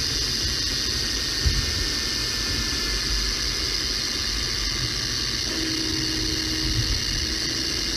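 Rear differential of a Mercedes E500 4MATIC heard through a chassis-ear clamp microphone while the car coasts off the throttle at about 40 mph: steady driveline and road rumble with a faint whine that slowly falls in pitch. This is the deceleration whine that the owner traces to a bad differential.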